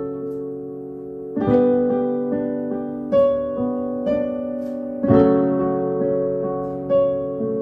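Instrumental music: slow chords on a keyboard-like instrument, a new chord struck about every two seconds and left to ring out.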